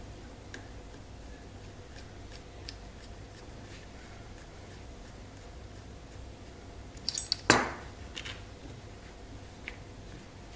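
Small tools and hardware being handled while a screw is fitted into an RC helicopter frame: faint light ticks, then a quick run of clicks and a sharper clack about seven and a half seconds in.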